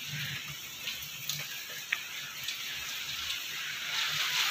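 Steady hiss of heavy rain and wind outside, heard through a closed door, with a few small clicks, growing louder near the end.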